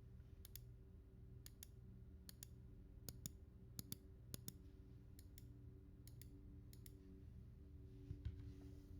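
Faint, separate clicks, each a quick double click, about one a second, over a low hum: single keys of a Royal Kludge RK84 mechanical keyboard being pressed and released one at a time.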